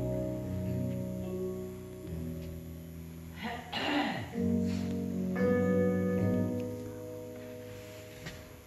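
Slow keyboard music playing held chords that change every second or two, with a brief rush of noise about four seconds in.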